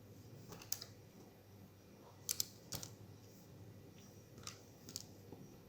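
Faint, scattered small clicks and taps from small parts of an opened Samsung Galaxy Note 8 being handled and taken apart, about half a dozen irregular clicks.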